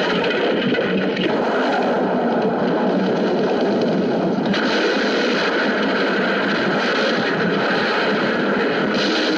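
Car tumbling and crashing down a steep dirt slope: a continuous, dense crashing and scraping noise on an old film soundtrack, with no single impact standing out.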